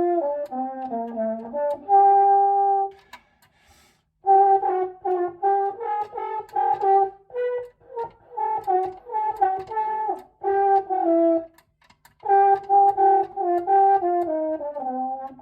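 French horn played in quick, scale-like runs of notes going up and down, in several phrases with short breaks between them.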